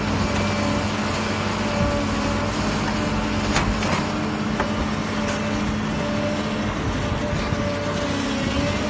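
CASE crawler excavator's diesel engine running steadily under load as the machine crawls up the steep side of a pit, with a steady whine over it and a few sharp knocks around the middle.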